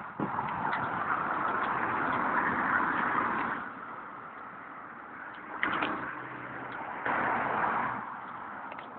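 Rushing noise of riding a bicycle along a paved path, loud for the first few seconds, easing off, then loud again briefly near the end, with a few sharp clicks and rattles from the bike.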